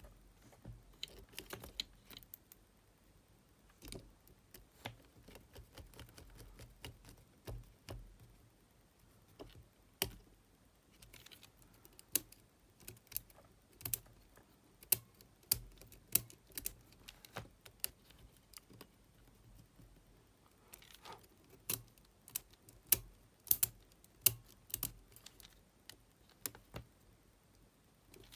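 Small screwdriver and fingers working the metal tape mechanism of a Sony TCM-450 cassette recorder: irregular sharp clicks and taps of metal parts and levers as a re-ground screw is driven back in and the mechanism is tried.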